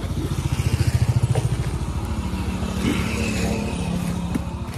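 A motorcycle engine idling with a steady low pulse of about ten beats a second, swelling briefly about a second in. Between about two and four seconds in, lighter rustling of packaging is heard as hands dig through parcels in a delivery backpack.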